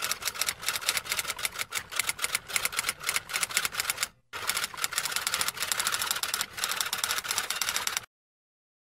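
Typewriter sound effect: rapid key clicks that accompany text appearing letter by letter. They break off briefly about four seconds in, resume, and stop abruptly about eight seconds in.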